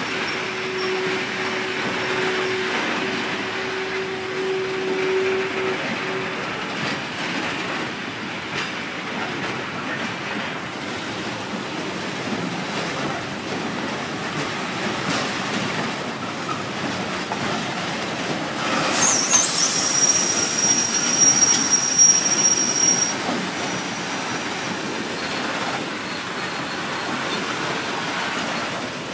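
Freight train of four-axle open wagons rolling slowly past, with the steady rumble and clatter of wheels on rail. A low steady whine sounds for the first six seconds. A shrill metallic wheel squeal rises about two-thirds of the way through and lasts a few seconds.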